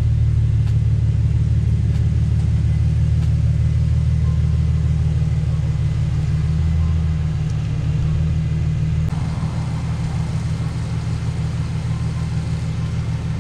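Infiniti G37's 3.7-litre V6 engine running at idle, a steady low rumble. In the last few seconds a garden hose sprays water over the car.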